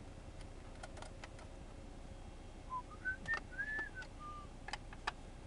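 A person whistling a short phrase of about five clear notes about halfway through, one of them held longer and bending up and down. Small sharp clicks of a screwdriver and screws on the laptop's plastic underside sound now and then.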